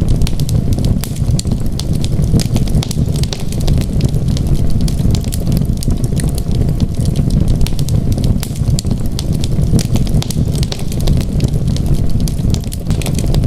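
Wood fire crackling: many small sharp crackles and pops over a steady low rumble of burning.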